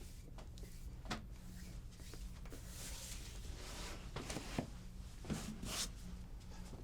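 Massage hands rubbing and sliding over skin and a sheet: soft swishes and rustles coming every second or so, over a steady low hum.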